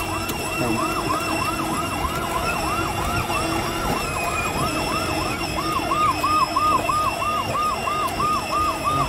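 Electronic police siren sound effect from a kids' 12V police-style Range Rover ride-on car, a quick repeating wail about three times a second that switches a little past halfway to a faster, choppier yelp.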